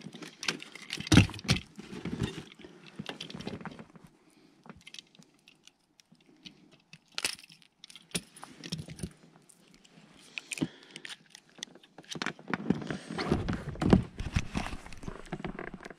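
Small metallic clicks and jingling from a fishing lip grip and pliers being handled while a chub is unhooked. Scattered knocks and rustling go with it, busiest near the end.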